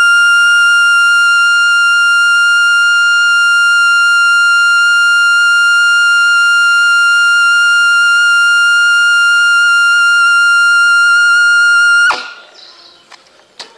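Trumpet holding a single very high, steady note for about twelve seconds, then cutting off abruptly; a faint click follows near the end.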